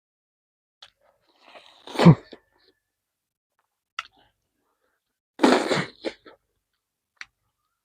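Close-miked eating mouth noises from a person chewing chicken: a few faint smacks and clicks, with two louder, short mouth sounds about two seconds and five and a half seconds in.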